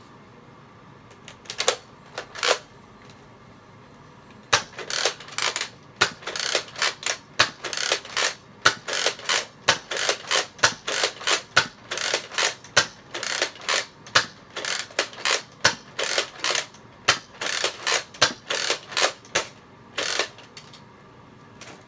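Nerf Zombie Strike Scravenger pump-action dart blaster being slam-fired: a rapid run of sharp plastic clacks from the pump and the spring plunger, about two to three a second for some fifteen seconds, after two single clicks near the start.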